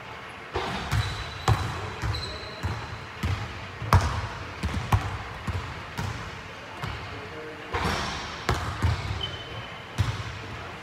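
Basketball bouncing and thudding on a hardwood gym floor, hitting the rim and being caught and passed between shooter and rebounder, as a string of irregular thuds about two a second.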